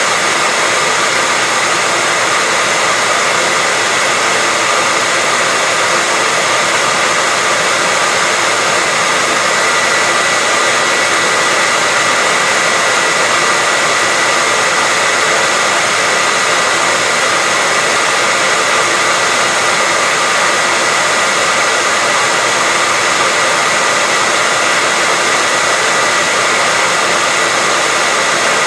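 Handheld hairdryer running continuously at a steady speed: an even rush of air with a constant motor whine.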